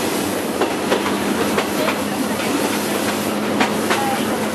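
Moving diesel locomotive heard from its outside walkway: steady engine hum under a constant rush of running noise, with steel wheels clicking irregularly over rail joints a few times a second.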